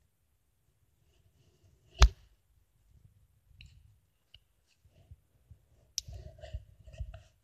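Handling noise from a small metal toy locomotive being turned and moved: one sharp knock about two seconds in, then scattered light clicks, and a run of soft knocks and rustles near the end.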